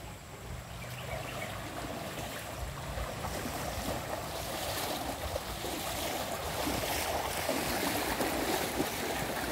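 River water rushing steadily, slowly growing louder.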